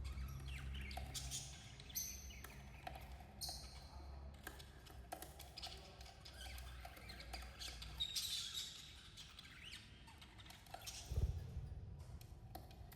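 Budgerigars chirping and chattering in short, high calls, with scattered small clicks and scratches and one low thump near the end.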